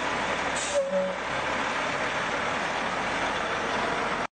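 A large vehicle's engine running steadily, with a brief squeal about a second in. The sound cuts off suddenly near the end.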